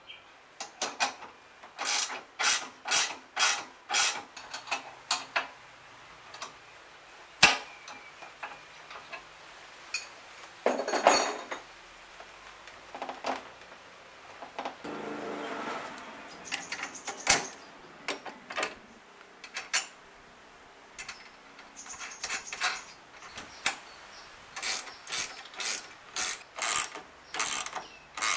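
Ratchet wrench clicking in runs of strokes, about two a second, as bolts are tightened. In between come a few single metal knocks and a short clatter of handled parts.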